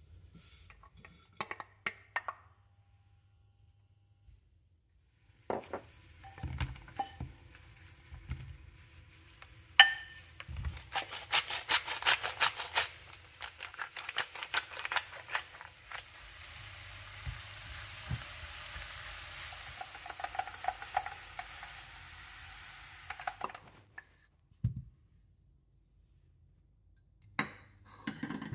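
Sliced porcini mushrooms frying in a nonstick pan: clattering and scraping as they are stirred and tossed, then a steady sizzle. Brief near-silent gaps fall before and after the frying.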